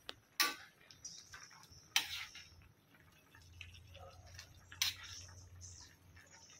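Metal ladle stirring and scraping in a steel wok of simmering curry, with three sharper clanks against the pan about half a second, two seconds and nearly five seconds in, and lighter scrapes and ticks between.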